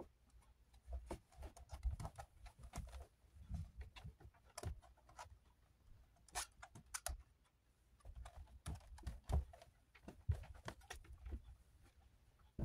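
Scattered light clicks, taps and soft knocks in irregular clusters as items are handled and set in place in a wire-grid guinea pig cage.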